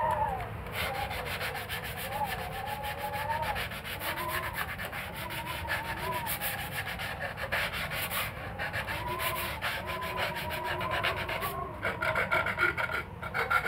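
North wind whistling through the gap around a door: a wavering whistle that slides up and down in pitch over a rough rushing of gusts.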